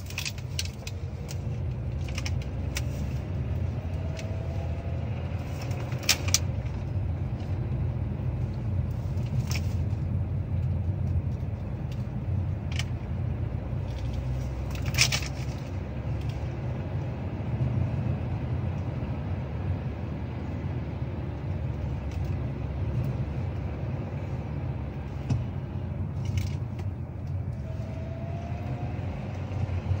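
Steady low road and powertrain rumble inside the cabin of a 2024 Kia Sportage Hybrid under way, with a few sharp clicks. A faint rising whine comes in briefly a few seconds in and again near the end.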